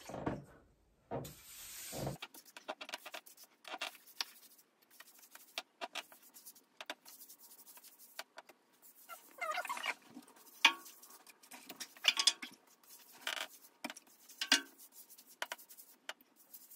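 Old wallpaper being wetted by hand with warm water to soak it before stripping: irregular wet rubbing and patter, with a few short squeaks in the second half.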